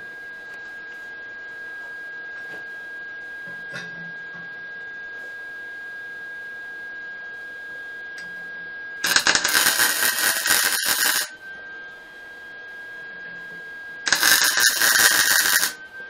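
Wire-feed (MIG) welder arc crackling in two bursts of about two seconds each, about five seconds apart, tack-welding a steel tube onto a mini bike frame. A steady high tone runs underneath.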